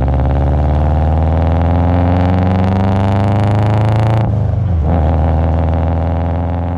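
Turbocharged Subaru flat-four engine of a modified Impreza WRX running at steady revs; a high hiss over it cuts off suddenly about four seconds in, and the engine sound then starts to fade.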